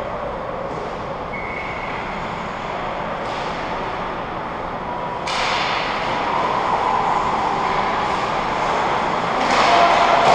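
Ice hockey rink ambience: a steady, echoing wash of noise from distant play, which gets louder about five seconds in and again near the end.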